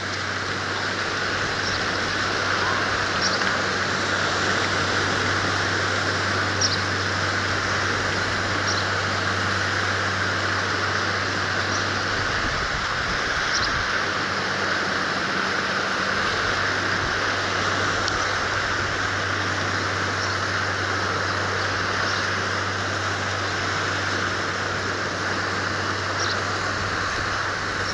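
Steady coastal outdoor ambience: a constant hiss of sea and wind, under a low steady hum that drops out for a few seconds midway. Short high bird chirps come now and then.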